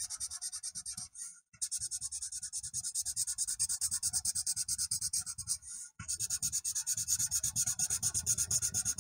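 Felt-tip marker scribbling on paper in quick back-and-forth colouring strokes, several a second, with two brief pauses.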